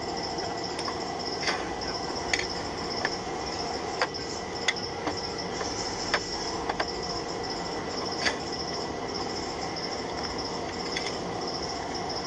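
Metal hand tools clinking and a steel tool-chest drawer sliding and knocking, about ten sharp irregular clicks over steady background machinery noise with a faint high whine.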